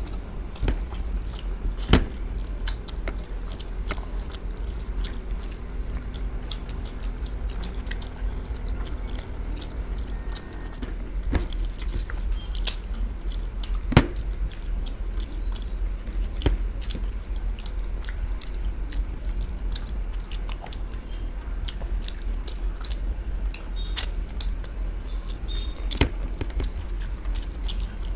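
Two people eating rice and chicken curry by hand: chewing and mouth sounds with many small clicks and a few louder sharp clicks, over a steady low hum.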